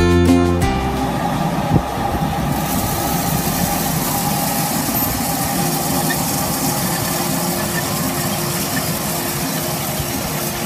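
Acoustic guitar music cuts off just under a second in. It gives way to the steady running of a Case Puma 240 CVX tractor's six-cylinder diesel as it pulls a Weaving GD6000 direct drill across grass.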